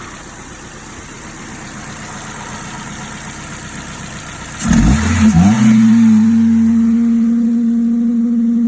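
Ford 2.0 Zetec four-cylinder engine running. A little over halfway the sound suddenly gets louder and a strong, steady hum sets in, dips briefly in pitch, then holds: the odd noise that began after the idle air control valve was replaced and the throttle body cleaned.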